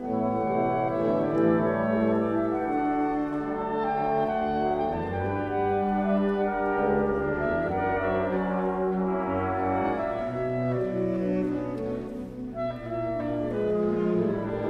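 Symphony orchestra playing an overture live, with many instruments holding overlapping sustained notes.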